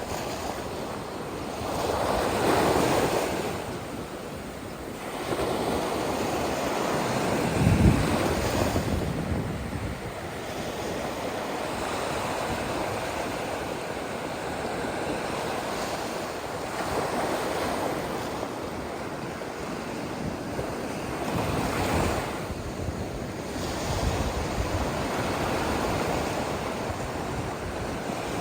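Ocean surf: waves breaking and washing up the beach, swelling and falling every few seconds, with one sharp low thump about eight seconds in. Wind buffets the microphone.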